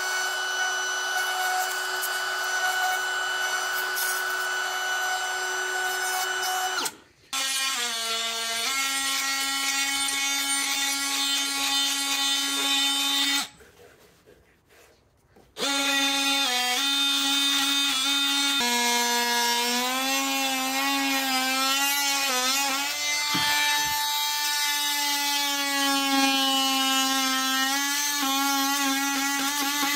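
Compact electric palm router whining at high speed, its pitch dipping and wavering as it cuts into wood. It drops out briefly about seven seconds in and goes quiet for about two seconds in the middle.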